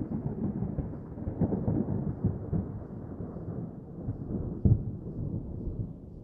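Low rolling thunder rumbles, with a louder boom a little past the middle, growing duller and fading away toward the end.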